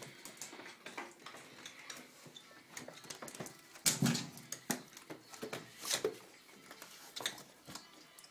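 A Dalmatian dog's short vocal sounds, the loudest about four seconds in and another near six seconds, among scattered clicks and knocks.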